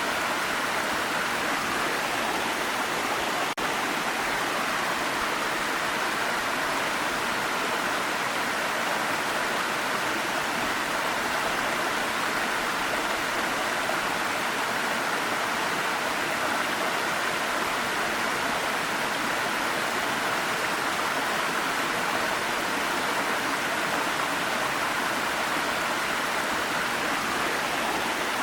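Waterfall: a steady rush of falling water, with a brief dropout about three and a half seconds in.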